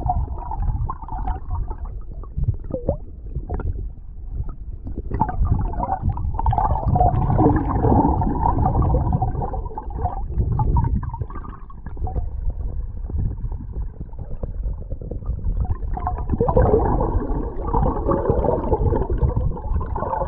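Muffled sound from an underwater camera held below the surface of a flowing creek: water gurgling and rushing past the submerged microphone, heavy in the low end with the higher sounds cut away.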